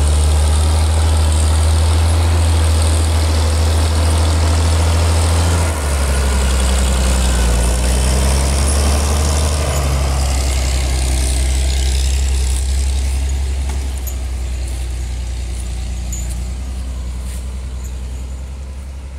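Farm tractor's diesel engine idling with a steady low hum, dipping briefly about six seconds in and growing fainter over the second half.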